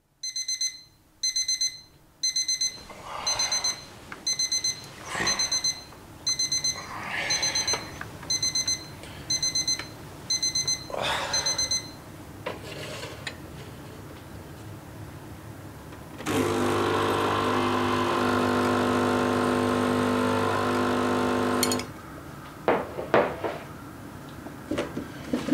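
Alarm clock beeping in quick clusters of high tones about every three quarters of a second, stopping about twelve seconds in. Later an espresso machine's pump runs with a loud steady hum for about five seconds as coffee pours into a glass, followed by a few light knocks.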